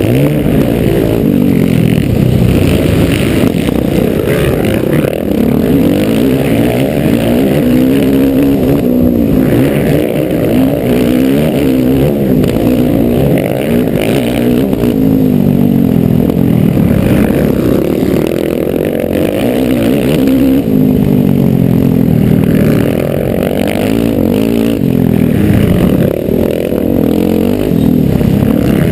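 Motocross bike engine under race load, revving up and falling back over and over as it accelerates along the dirt track.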